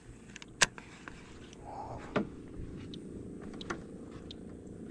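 A few sharp clicks and light handling noise from a baitcasting reel and rod, over a steady low background noise.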